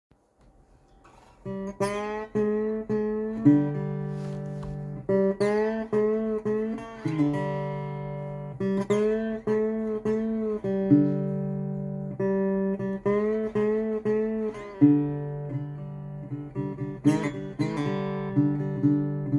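Resonator guitar played with a metal slide: a blues tune in G, picked notes that ring and glide up and down in pitch between them, starting about a second and a half in.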